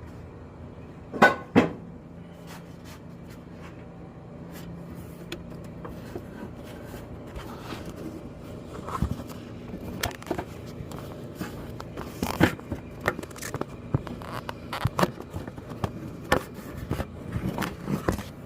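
Scattered clicks, knocks and scrapes of hands and tools working on parts in a car's engine bay, with two sharp knocks about a second in and a denser run of clatter in the second half.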